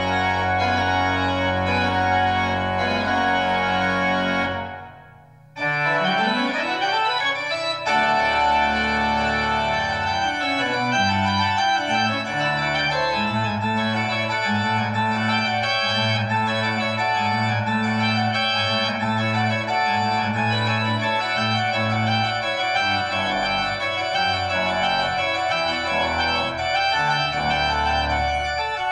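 Pipe organ playing sustained full chords. About four seconds in, the music stops and dies away in the room's reverberation. A new passage then begins with a rising run of notes and builds into full, held chords.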